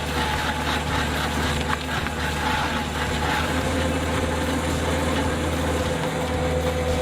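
Heavy vehicle's diesel engine running steadily at a low, even speed, with a steady whine above the engine's note.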